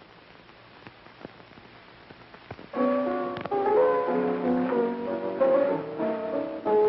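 Piano playing a tune in chords, starting abruptly about three seconds in after a hushed stretch with a few faint clicks.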